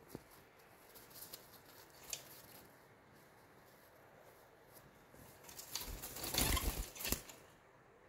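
Cockatiel wings flapping in a rustling flurry about six seconds in, the loudest thing here, after a few faint clicks earlier on.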